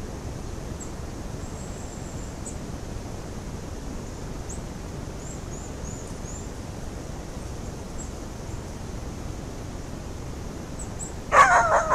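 Steady hiss of woodland ambience through a camera trap's microphone, with faint high bird chirps around the middle. A brief loud sound breaks in near the end.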